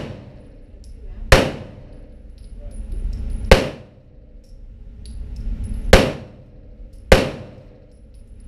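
Handgun shots fired one at a time at an unhurried pace, five in all, with one to two and a half seconds between them. Each shot has a long echo off the walls of the indoor range.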